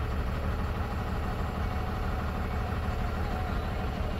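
Loaded truck's diesel engine idling steadily, a low even hum.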